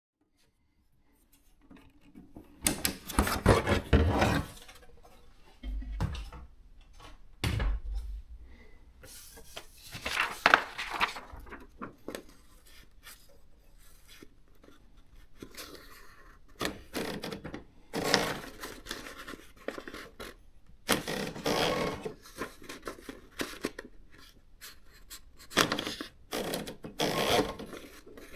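Olivetti ET Compact 60 daisywheel electronic typewriter printing in quick rattling bursts of a second or two, six times with pauses between. A low thud comes about seven seconds in.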